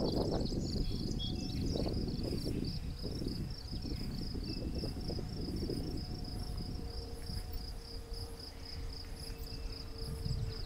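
Crickets chirping in a steady, even rhythm of about five or six chirps a second, one high note throughout. Beneath it runs a low rumbling noise, strongest in the first couple of seconds and easing off.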